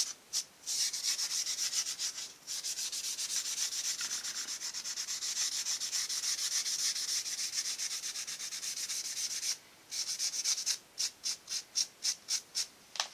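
Scotch-Brite abrasive pad scrubbed quickly back and forth by hand across the rear face of a Studebaker V8 engine block, a final cleaning of the bell-housing mounting surface after deburring so the bell housing fits flat. The scrubbing runs in fast, dense strokes with a few brief pauses, and near the end breaks into a string of separate short strokes, about three a second.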